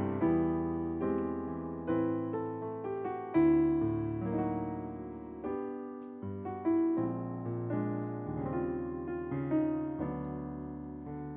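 Yamaha CP stage piano playing a slow solo passage of chords. Each chord is struck and left to ring, and the playing grows softer toward the end.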